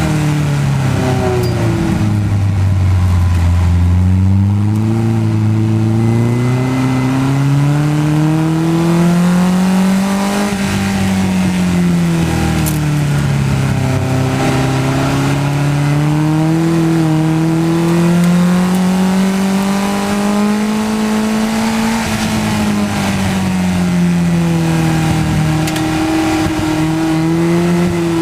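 Mazda MX-5-engined Seven-style race car's four-cylinder engine heard from the open cockpit, its note rising in pitch under acceleration and dropping on braking and downshifts several times. A steady rush of wind and wet-track spray noise lies underneath.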